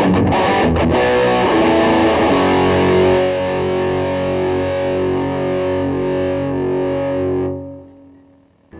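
Replica Gibson Les Paul Custom electric guitar played through distortion: a quick run of picked notes, then a chord struck about three seconds in and left ringing, dying away near the end.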